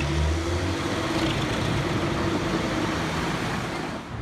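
Large diesel-hybrid industrial wood chipper running under load as logs are chipped: a loud, steady grinding noise. A low engine hum underneath fades out about half a second in, and the sound cuts off abruptly at the end.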